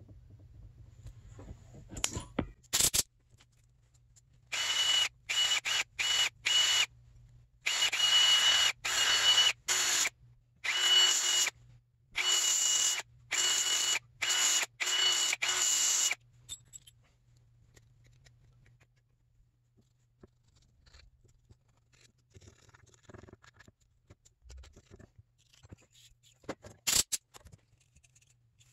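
Cordless drill spinning a flap-wheel sander in about a dozen short bursts, cleaning carbon off snowmobile power-valve parts, with a steady high whine in each burst. The bursts stop about 16 seconds in, followed by faint handling of parts and a single click.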